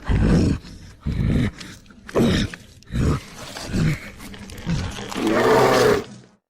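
Hulk-style creature vocal effects: about six short grunts and groans in quick succession, then a longer roar about five seconds in.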